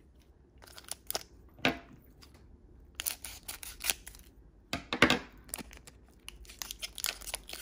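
Foil Pokémon booster pack wrapper being opened by hand: crinkling and tearing of the foil, with scattered sharp crackles, the loudest about five seconds in.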